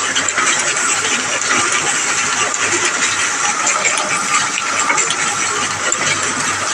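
Gestetner 211 offset printing press running steadily, printing: an even, dense mechanical clatter over a low hum.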